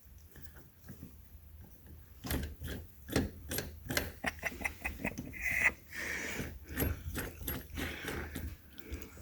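Irregular light clicks and taps from a wooden gear shift knob being turned down onto the threaded gear lever, starting about two seconds in, with a few short breaths between them.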